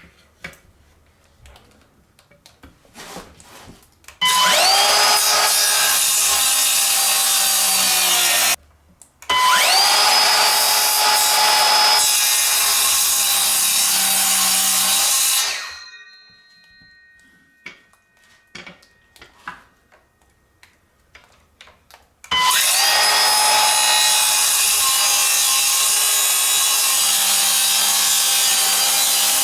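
Circular saw (skill saw) cutting small blocks from a scrap board. It spins up about four seconds in and runs with a steady whine. It stops abruptly, starts again at once, then winds down. After a pause of several seconds with small handling clicks, it spins up again and runs on.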